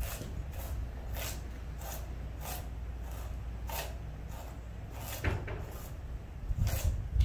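Kitchen knife slicing carrots on a wooden cutting board: a string of short, crisp chops, a little under two a second, with a brief pause about two thirds of the way through.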